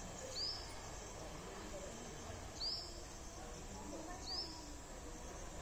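A bird repeating a short rising chirp about every two seconds, three times, over a faint steady outdoor background.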